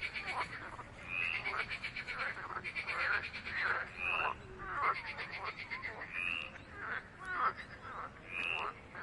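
Chorus of frogs calling: rapid trilling pulse trains overlapping short falling croaks, with a brief higher note recurring about every two seconds.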